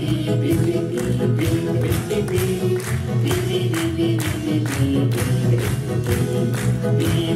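Upbeat song music playing with a steady beat and no words sung: an instrumental passage between verses.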